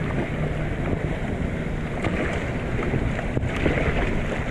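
Wind buffeting the microphone over choppy sea, with water splashing and lapping around a paddled kayak.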